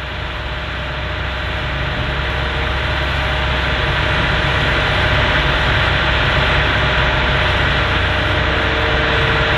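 Hitachi Zaxis 225USR excavator's diesel engine running steadily, growing a little louder over the first few seconds.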